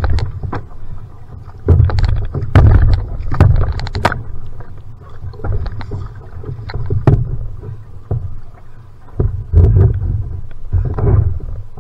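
Wind buffeting the microphone in gusts of low rumble over the strokes of a single-blade paddle in choppy water on a va'a outrigger canoe. The splashes and knocks come fast in the first few seconds, then thin out.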